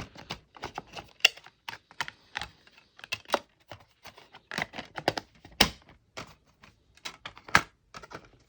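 Irregular plastic clicks and clacks from handling DVD discs and their multi-disc case.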